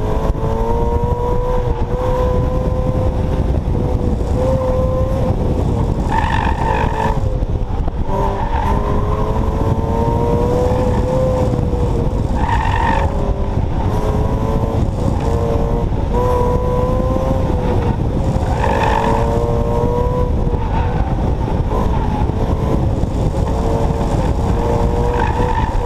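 Subaru BRZ's 2.0-litre flat-four engine revving up and down as it is driven hard around an autocross course, with four short bursts of tyre squeal in the turns, roughly six seconds apart. Wind rushes over a microphone mounted outside the car.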